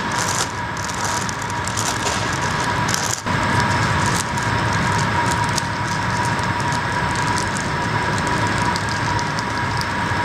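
Steady factory-hall machinery noise with a constant high-pitched whine, with light crackling in the first three seconds. The sound dips for an instant about three seconds in, then runs on evenly.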